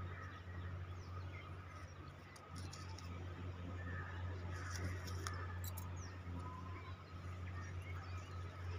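Faint, scattered bird chirps over a steady low hum.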